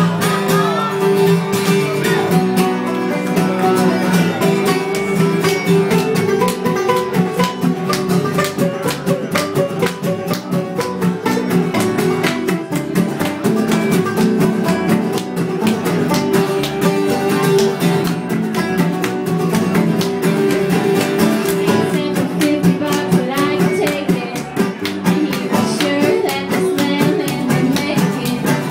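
A live acoustic string band playing a country-folk song: rapid banjo picking over upright bass, with plucked strings ringing steadily throughout.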